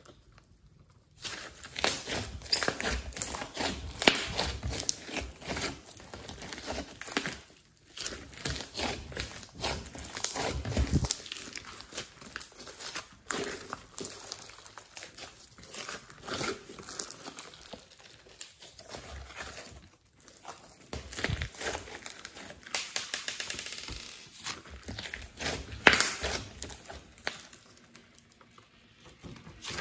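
Hands stretching, pulling and squeezing a large mass of glossy slime mixed with clay: dense sticky crackling and popping as the slime stretches and folds, broken by a few short pauses.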